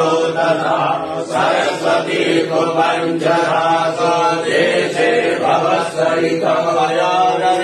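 Sanskrit mantras chanted in a steady, continuous recitation over a low steady drone, as sung during a Shiva abhishek ritual.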